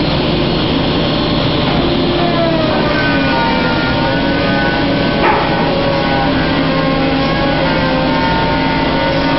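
Industrial saw machinery running steadily, with its tones dropping in pitch about two to four seconds in and then holding, and one sharp knock about five seconds in.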